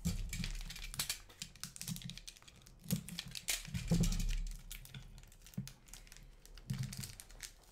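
Hockey trading cards being handled and flicked through by hand: irregular light clicks and taps with some soft rustling.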